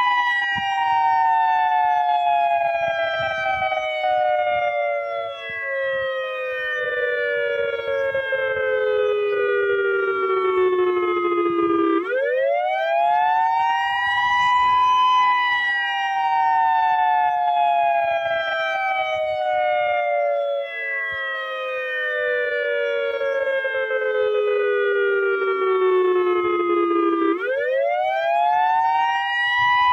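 Federal Signal EOWS-1212 electronic outdoor warning siren sounding the Attack signal. Its two-tone chord sweeps up quickly, then slides slowly down for about twelve seconds. It rises again about twelve seconds in and once more near the end.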